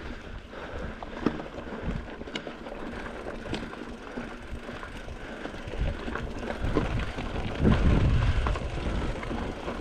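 Rockrider XC900S mountain bike riding over rough quarry ground: tyres crunching on gravel and stone, with scattered clicks and knocks from the bike. A heavier rumble comes in about eight seconds in.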